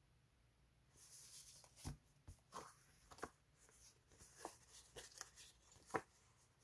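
Paper label-sticker sheets being handled: a soft rustle about a second in, then a string of crisp paper taps and flicks as the sheets are shuffled and fanned out, the loudest near the end.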